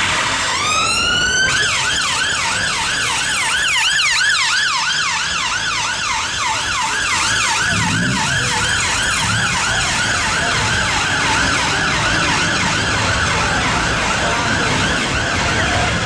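Ambulance electronic siren. About half a second in it sweeps up in a rising wail, then switches to a fast yelp of about three rises and falls a second, which grows fainter in the last few seconds. Traffic noise runs underneath.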